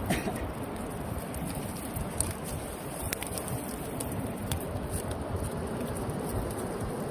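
Steady rushing beach ambience of surf and wind, with a few faint ticks scattered through it.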